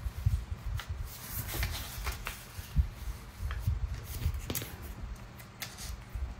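Paper being handled and shifted on a tabletop: soft rustling with scattered light taps and clicks.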